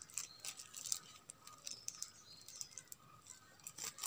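Faint, scattered crinkles and light clicks of thin plastic wrapping being handled while portions of sticky tamarind candy are wrapped.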